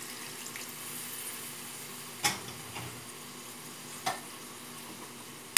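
Chicken adobo sizzling in a wok over a gas burner after a little water has gone in, a steady hiss. Two short sharp knocks come about two and four seconds in.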